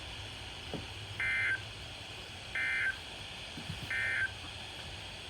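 Emergency Alert System end-of-message code: three identical short bursts of SAME digital data tones, about 1.3 seconds apart, signalling the end of the alert. They sound over a steady low hum.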